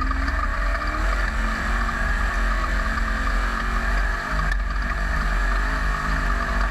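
Off-road race car's engine running hard as the car accelerates away along a dirt track, heard from an onboard camera at the back of the car with heavy wind and road rumble. The engine note steps up about a second in, then holds fairly steady.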